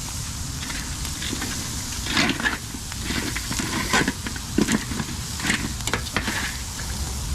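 Burgers sizzling over a wood fire pit, with irregular crackles and pops, busiest in the middle of the stretch, over a steady low rumble.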